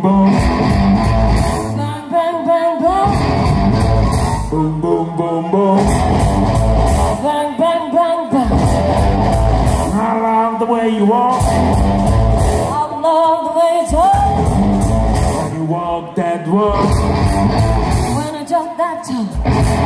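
Loud live rock and roll music: a band with guitar and a singer.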